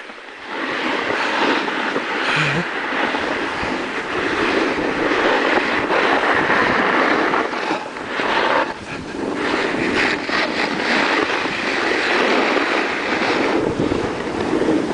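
Steady rushing and scraping of skis sliding over hard-packed groomed snow, mixed with wind buffeting the microphone as the filming skier moves downhill; it eases briefly about halfway through.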